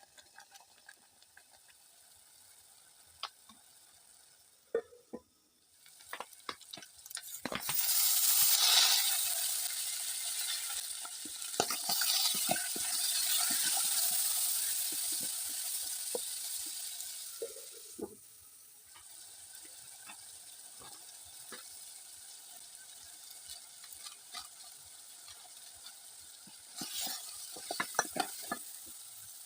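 Food added to hot oil in a pan starts sizzling suddenly about seven seconds in. The sizzle is loud for about ten seconds, then settles to a steady, quieter frying hiss. Scattered clicks of a utensil stirring in the pan come before it and again near the end.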